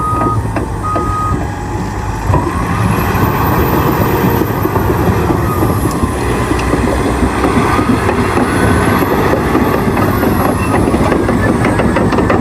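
Caterpillar D9T bulldozer working: its diesel engine runs heavily under load while a reverse alarm beeps twice at the start and then stops. The engine rises in pitch about two seconds in and again past the middle, and rapid metallic clanking sets in near the end.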